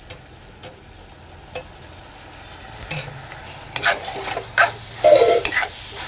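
Keema (minced meat) frying in hot oil in a metal kadai, stirred with a steel spoon that scrapes and clicks against the pan. Quiet with a few light clicks at first; the sizzling and scraping get louder about halfway through, with the loudest strokes near the end.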